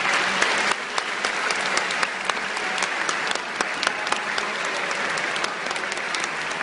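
A large crowd of people clapping, a dense run of sharp claps, loudest in the first second and then holding steady.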